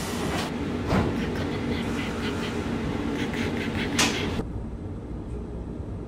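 Taipei Metro Circular Line train running on elevated track, heard from inside the car: a steady low rumble with scattered clicks and rattles. About four seconds in the sound changes abruptly to a duller, quieter rumble.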